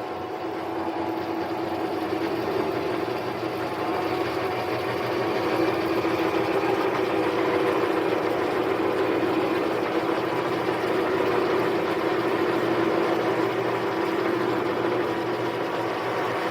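Harbor Freight mini lathe running steadily, cutting the large bore through a spacer workpiece; the sound grows a little louder a few seconds in.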